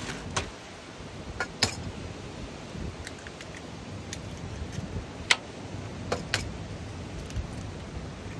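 Sharp clinks and clicks of food and utensils against a metal bowl as food is poured in and worked by hand, about eight of them scattered through, over a steady low rumble.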